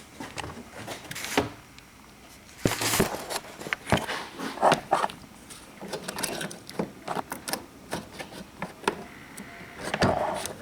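Irregular clicks, clinks and rattles of hand tools and a wire being handled and rummaged through, with a busier clatter about three seconds in and again near the end.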